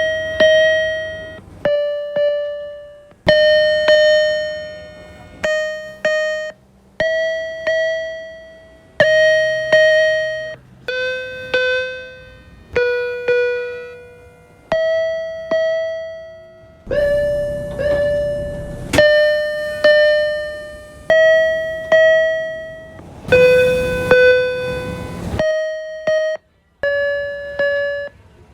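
MBTA Orange Line subway car door chimes, recorded inside the car, heard as a rapid series of clips cut together: one electronic bell-like chime roughly every one to two seconds, each starting sharply and dying away. The pitch shifts from clip to clip, and a few clips carry train and station background noise.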